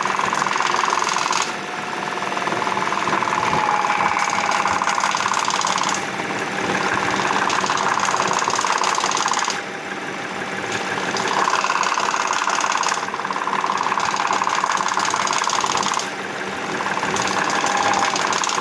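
Cold Audi/VW EA837 V6 engine being revved up and let back down about five times, with a fast 'da-da-da' ticking rattle that gets plainly louder as the revs rise: a cold-engine fault whose cause the owner does not know.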